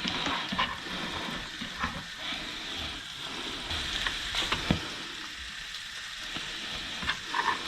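Chopped bacon sizzling in a hot pan of oil and butter, a steady hiss with occasional light clicks as the pieces are spread out.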